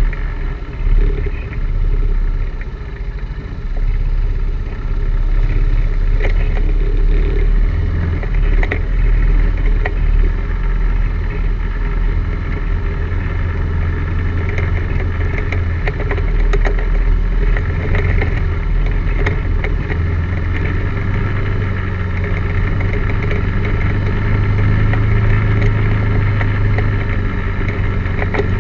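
ATV engine running steadily under load, its pitch rising and falling with the throttle, with scattered knocks and clatter as the machine jolts over roots and rocks.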